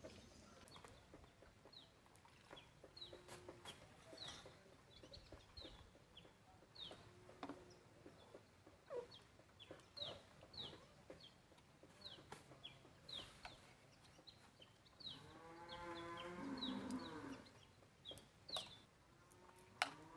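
Farmyard chickens: a run of short, high chirps and clucks, with a longer drawn-out pitched call of about two seconds around fifteen seconds in.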